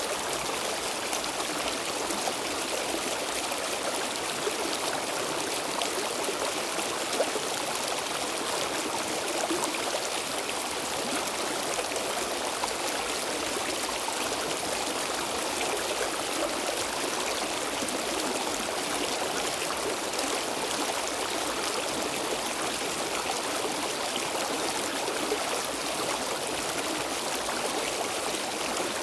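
Stream water flowing steadily over rocks, a continuous rushing babble with small splashes throughout.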